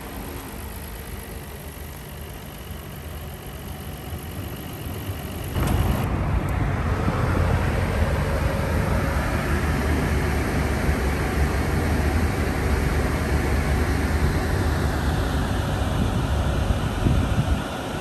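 Nissan Skyline GT-R V-spec's twin-turbo RB26DETT straight-six idling steadily through a NISMO NE-1 exhaust, with no revving. About five and a half seconds in, the sound jumps abruptly to a louder, fuller idle.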